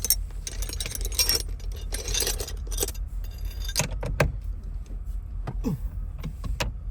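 Small metal parts and tools clinking and rattling for about three seconds, then several separate sharp clicks, as parts are fitted back onto a truck's steering column.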